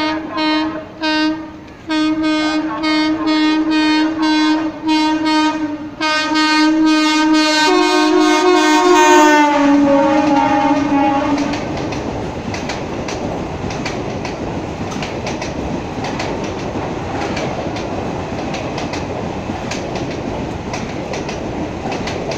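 Passenger train horn sounding in a series of short blasts, then one long continuous blast that drops in pitch about ten seconds in and fades away. Then the steady rumble and clickety-clack of the train's wheels running over the rail joints as the coaches pass.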